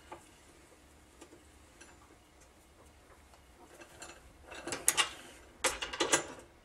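Socket ratchet clicking in two short runs, the second near the end, as a bolt is tightened into a metal jack-plate mount bracket, with a few faint clicks before.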